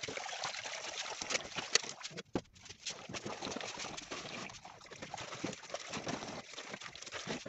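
Handwashing dishes under a running kitchen tap: water splashing into the sink, a sponge scrubbing a pot, and occasional clinks and knocks of cookware against the sink.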